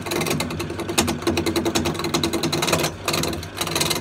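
Turning gouge cutting a wooden blank spinning on a Myford wood lathe at low speed, about 600 RPM, while roughing it to shape. The rapid dry chatter of the cut sits over the lathe's steady hum, breaks off briefly about three seconds in, then resumes.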